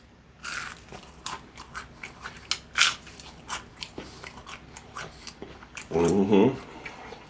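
Close-miked biting and chewing of crispy fried chicken, the breading crackling in a run of sharp crunches, loudest about three seconds in. A brief voiced sound comes about six seconds in.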